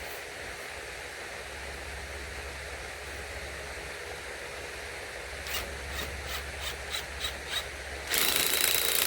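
A series of light clicks, then near the end a cordless drill or driver runs loudly, driving a screw to fasten the 2x4 guide to the log.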